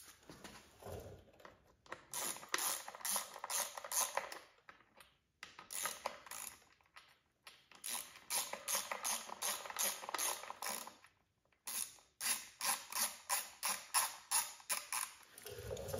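Hand ratchet clicking in several quick runs, with short pauses between, as the 5 mm hex bolts holding the timing belt guides are run in and tightened.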